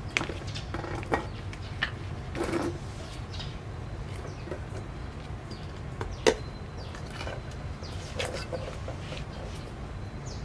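Scattered clicks and knocks from handling a plastic-lidded formula milk tin and a small bottle, the sharpest knock about six seconds in, with a few short animal calls over a steady low hum.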